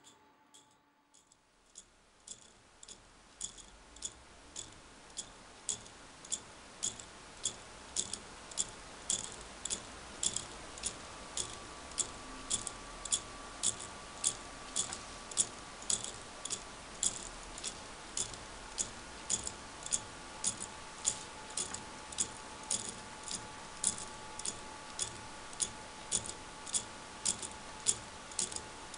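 Lego Technic pendulum clock with a pin wheel escapement ticking: sharp plastic clicks from the escapement, evenly spaced at about three every two seconds, starting about a second and a half in.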